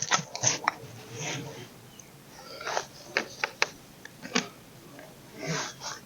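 Handling noises: rustling with a few sharp clicks and knocks, the loudest about three and a half seconds in.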